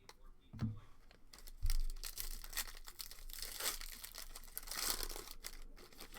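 Trading card packaging being torn open and crinkled by hand, a dense crackle of tearing and rustling for several seconds.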